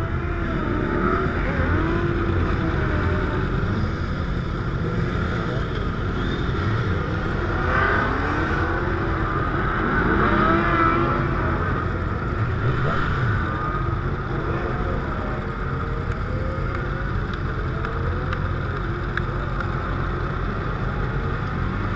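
Several sport motorcycles' engines running and revving, their pitch rising and falling again and again, over a steady low rumble. The revving is busiest about eight to eleven seconds in.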